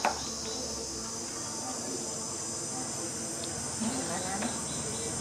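Steady high-pitched chorus of insects, likely crickets, running throughout, with a brief clack right at the start.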